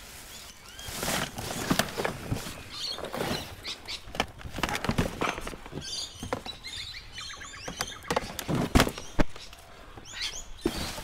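Irregular knocks and clatters of plastic and metal junk being handled and shifted in a pile of discarded electronics, with two sharp knocks a little over halfway through.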